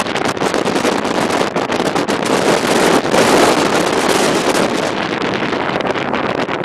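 Strong gusting wind of an oncoming dust storm blowing across the microphone, a loud continuous rushing and buffeting that swells for a couple of seconds in the middle.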